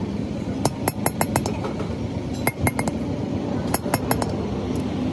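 Sharp metallic clinks of a steel hand tool tapping down on the valve stem seals of an aluminium cylinder head, in three quick clusters of four to six taps, over a steady low background rumble.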